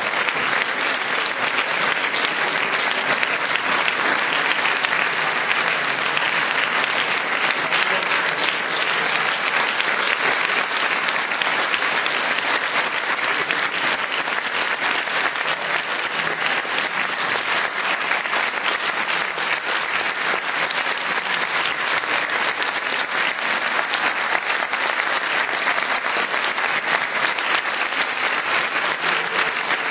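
Concert audience applauding steadily: a dense, even clapping that holds at the same level throughout.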